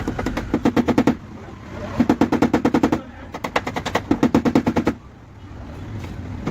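Rapid tapping on a car's sheet-metal body panel during cold (paintless) dent repair, about ten taps a second in three bursts of a second or so each.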